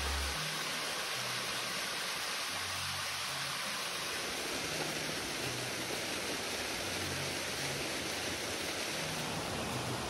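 Steady rush of water falling over a rock face from a waterfall, with the tail end of a music track cutting off just at the start. About four seconds in, the rush shifts to a fuller, deeper sound as a second waterfall takes over.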